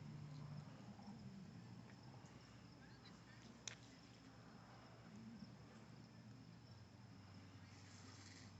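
Near silence: faint background hum with a faint steady high-pitched tone and a single sharp click a little over three and a half seconds in.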